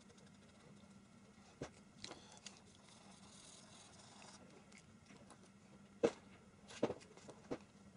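Felt-tip marker scratching softly on paper while colouring, with a few short clicks and taps of markers being handled, capped and set down, the sharpest about six seconds in.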